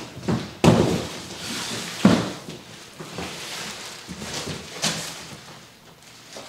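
Large cardboard shipping boxes being handled and rummaged through: irregular thumps and knocks with scraping, rustling cardboard in between.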